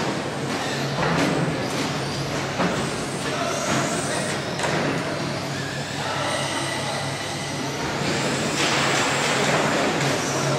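Several 1/10-scale electric RC short course trucks racing in a large hall: motor whines rise and fall as they accelerate and brake, over tyre noise, with occasional short knocks.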